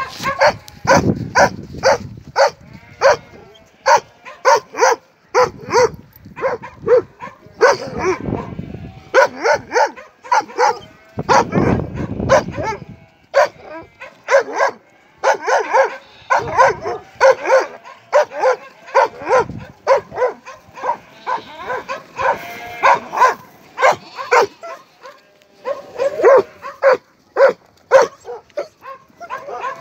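A flock of sheep bleating: many short calls overlapping in quick succession, several a second, with a few brief lulls.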